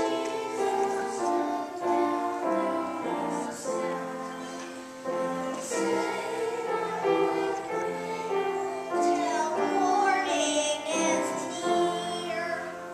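A group of children singing a song with musical accompaniment, the music fading out near the end.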